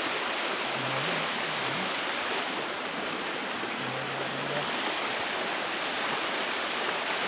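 Creek water flowing steadily over rocks, a constant rushing hiss.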